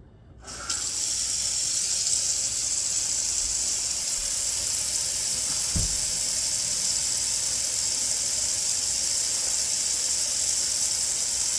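Kitchen faucet turned on, water running steadily into the sink and down the drain of a newly installed garbage disposal, a constant rushing hiss that starts about a second in. A brief low thump comes midway.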